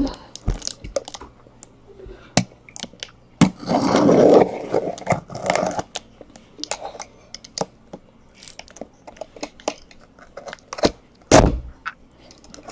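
Cardboard shipping case being handled and turned over on a table. Scattered knocks and taps, a longer scraping rustle of cardboard about four seconds in, and a sharp thud near the end.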